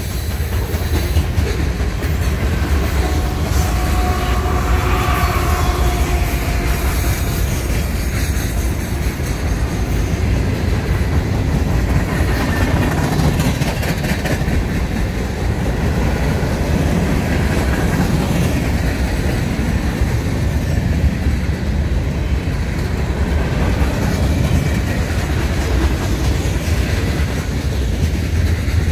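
Freight train cars rolling past: a steady loud rumble of steel wheels on the rails with clickety-clack over the joints. A thin faint wheel squeal rises for a few seconds about four seconds in.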